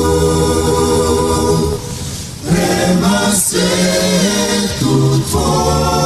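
A cappella choir singing long-held chords. The singing thins out briefly about two seconds in, then moves to a new chord after about five seconds.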